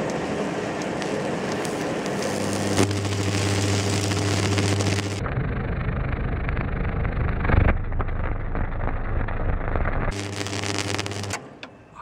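High-voltage current from a microwave-oven transformer (about 2000 volts) tracking through a tree branch as it chars: a steady electrical buzz with crackling and sizzling from the burning wood. The buzz cuts off near the end as the power is switched off.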